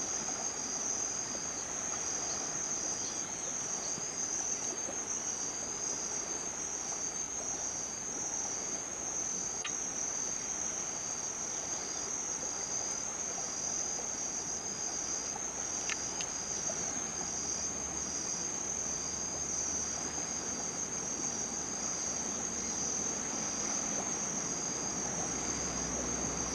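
Insects trilling in the tropical dawn: one steady high-pitched trill, and a second, slightly lower call pulsing about once a second, over a soft even background hiss.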